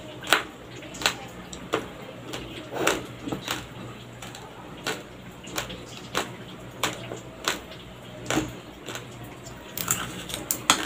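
Raw, uncooked rice grains crunching as they are chewed, in sharp separate cracks that come irregularly about once or twice a second, over a low steady hum.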